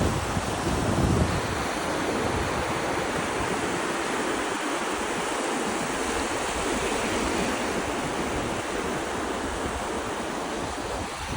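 Steady rush of sea surf, with wind buffeting the microphone in gusts during the first second or so.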